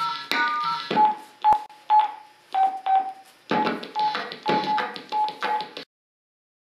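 Electronic cell phone beeps at a few different pitches, each with a sharp click at its start, in an uneven rhythm. The sound cuts off abruptly about six seconds in.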